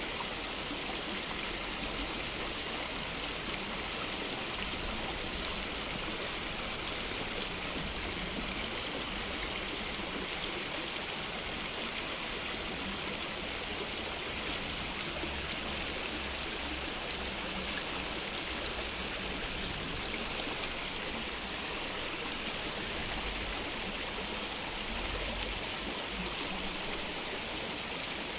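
Stream water running in a steady, even rush, with an uneven low rumble underneath.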